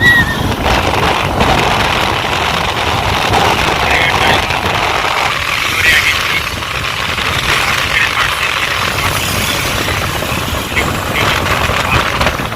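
A motor vehicle's engine running steadily as it travels, with a rushing noise over it.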